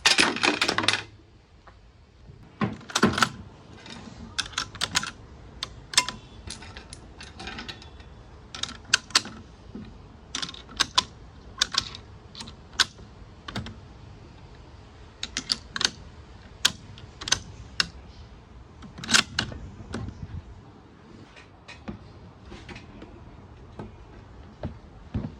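Mechanical handling noise from an airsoft Karabiner 98k rifle: a loud rattling clatter about a second long at the start, then a string of sharp clicks and clacks, singly and in small clusters, at uneven intervals.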